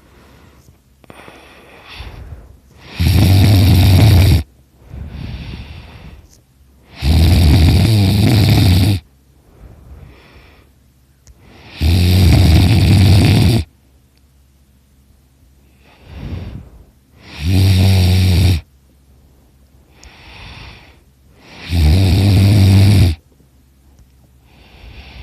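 A person snoring very loudly in sleep. Five loud snores come one every four to five seconds, each about a second and a half long with a deep rumble, and softer breaths fall between them.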